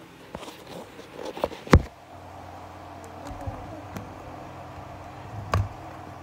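Handling knocks and thumps against a workbench, the loudest a sharp knock a little under two seconds in and another about five and a half seconds in, over a steady low hum.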